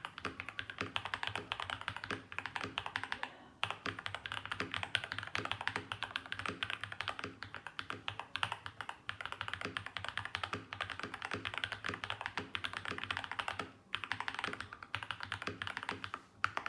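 Continuous fast typing on a Feker FK68T mechanical keyboard fitted with lubed Holy Panda tactile switches, gasket-mounted with foam dampening: a dense stream of keystroke clacks, with short pauses about three and a half seconds in and again near fourteen seconds.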